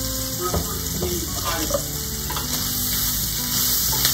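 Sliced onions and green peppers sizzling in a stainless steel skillet, with a few light clicks and scrapes from a pepper grinder and a wooden spoon stirring the pan.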